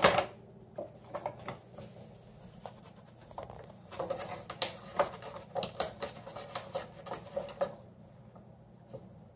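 A paper grocery bag rustling and crinkling in short spells as a dog noses at it, with light scratching. There is a sharp knock at the very start, and the rustling is busiest from about four to eight seconds in.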